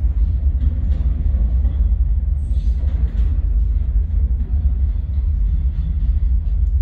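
Steady low rumble of a subway pump work train approaching through the tunnel toward the station, with faint scattered clatter above it.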